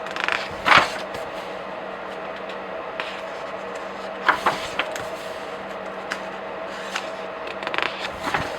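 Comic book and graphic novel pages being turned by hand: quick paper rustles and flaps in three bunches, near the start, about four seconds in and near the end, over a faint steady hum.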